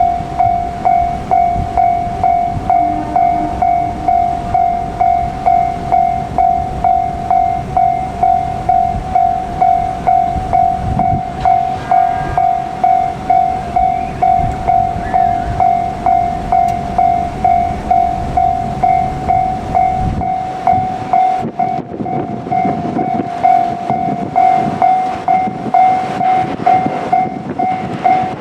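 Japanese level-crossing warning bell ringing, a steady electronic ding repeating at an even pace throughout. A JR Kyushu 787 series electric train runs past over the rails, and its rumble dies away about twenty seconds in while the bell keeps ringing.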